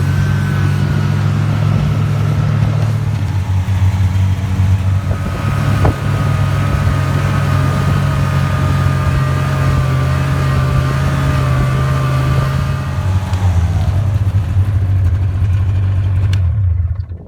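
A vehicle engine running at a steady speed, which drops in pitch near the end and then shuts off.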